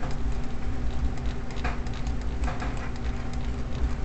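Steady room hum: a low rumble with a constant drone of a few tones, and faint scattered clicks and rustles.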